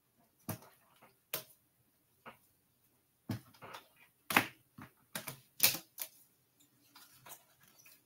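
Irregular clicks and taps of typing on a computer keyboard, about a dozen keystrokes with uneven gaps, the loudest a little after four seconds in and near six seconds.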